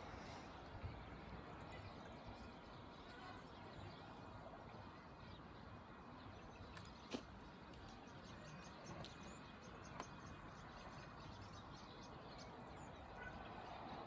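Faint outdoor ambience: a low, steady haze of distant town noise with scattered faint bird chirps through the middle stretch, and two sharp clicks about seven and ten seconds in, the first the louder.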